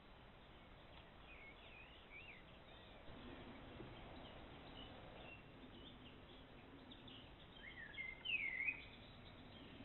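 Songbirds singing in woodland: faint scattered chirps and short whistled phrases, with one louder, swooping whistled phrase about eight seconds in.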